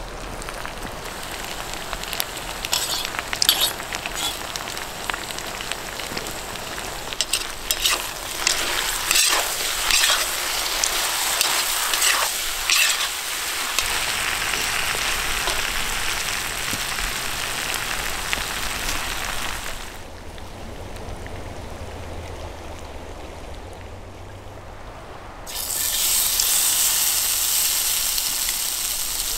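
Meat, potatoes and onions frying and sizzling in a black pot, with short clicks and scrapes of stirring through the first half. The sizzle drops quieter about two-thirds of the way through, then comes back louder near the end.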